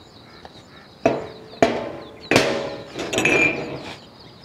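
Glass mugs knocking against a tray and each other as they are handled: three sharp clinks about a second, a second and a half, and two and a quarter seconds in, then a short run of lighter knocks.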